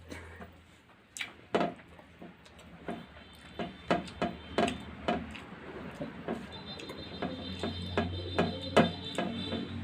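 Eating sounds of a person eating rice and greens by hand: irregular wet clicks and smacks of chewing and lip-smacking, a few each second.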